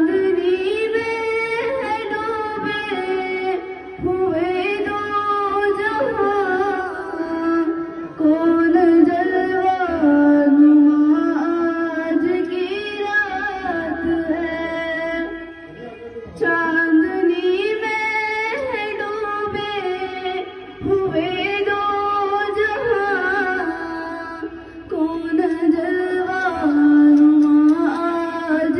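A girl singing solo into a handheld microphone: a melodic song with bending, ornamented pitch, sung in phrases a few seconds long with short breaks between them.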